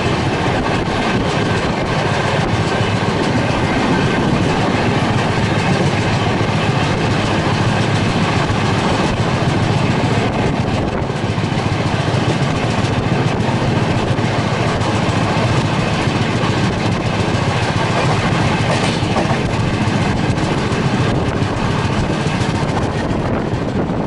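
Rajdhani Express passenger train running along the track, with a steady, loud rumble of wheels on rails.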